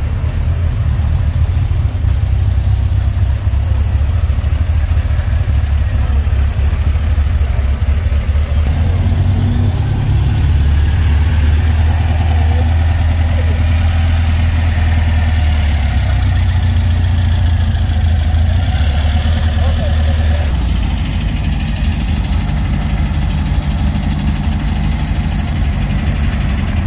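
Car engine idling and running at low speed, a steady low drone that shifts in pitch about eight seconds in and again about twenty seconds in.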